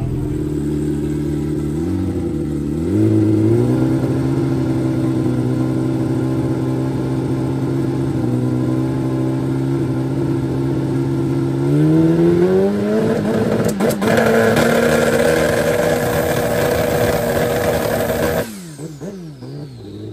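Twin-turbo Suzuki GSX-R1000 drag bike's four-cylinder engine idling steadily. It steps up in revs about two seconds in, climbs again about twelve seconds in and is held there, then drops away abruptly near the end.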